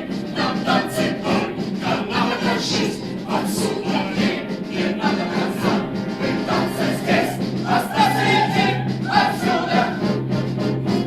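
Choir singing with music, held notes over a steady low note.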